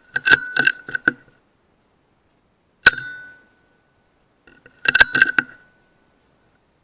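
Air rifle shot: a single sharp crack with a short metallic ring about three seconds in, between two quick bursts of clicks and knocks near the start and at about five seconds.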